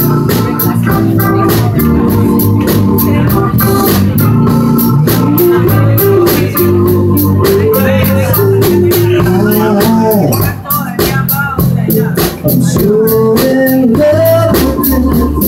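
Live keyboard music: an electronic keyboard on an organ sound holding sustained chords and playing a melody line over a steady drum-machine beat.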